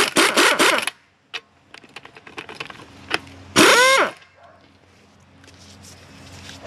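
Power impact wrench tightening a nut on a strut assembly: a burst of hammering that stops about a second in, then a second short burst about three and a half seconds in that ends with the motor whining down in pitch.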